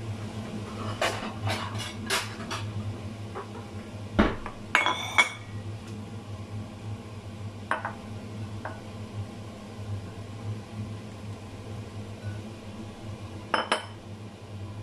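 Ceramic plates and bowls being handled: a quick run of clicks and knocks, a louder knock and a ringing clink about four to five seconds in, a few light taps, then a double clink near the end.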